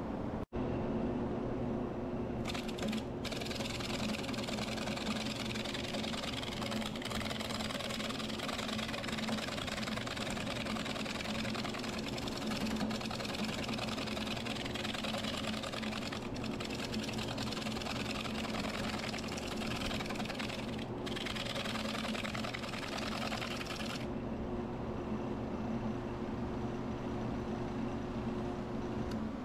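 Grizzly wood lathe running steadily at about 620 rpm while a gouge cuts a spalted, punky wood blank. The cutting hiss starts about two and a half seconds in, breaks off briefly a few times, and stops a few seconds before the end, leaving only the lathe's motor hum.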